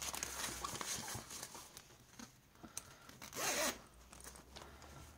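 Metal zip on a fabric zipped purse being pulled shut, a rough rasping run, with the loudest stretch about three and a half seconds in.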